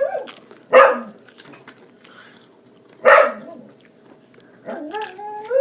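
Dog barking: two short, loud barks, about a second in and about three seconds in, followed near the end by a longer wavering, pitched call.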